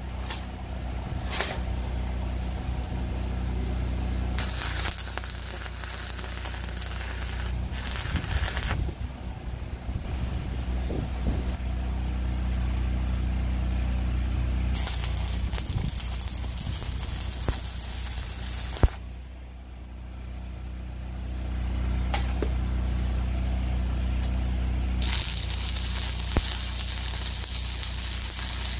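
Stick (arc) welding: the arc runs in three bursts of a few seconds each, about four seconds in, about fifteen seconds in and near the end. A steady low hum runs underneath, and a sharp click comes as the second bead stops.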